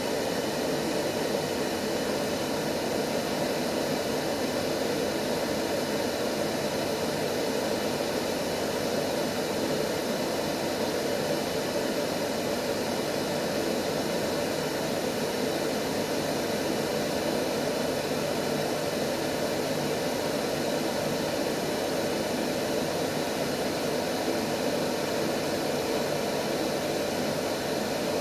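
Steady white noise played as a baby sleep aid: an even, unchanging rush of noise, heavier in the low-to-middle range than a thin hiss.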